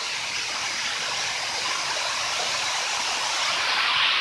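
Steady rush of falling water from the waterfall in St Nectan's Glen, growing slowly louder.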